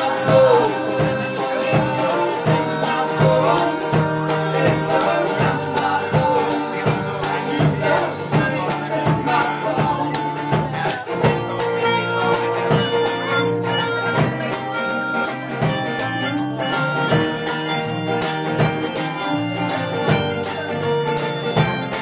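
Live folk-pop band playing: strummed guitars under a female lead vocal, with a shaker keeping a steady rhythm.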